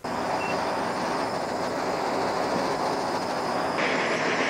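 Hand-held propane torch burning with a steady hiss as its flame preheats a thick quarter-inch aluminium brace and hull before welding.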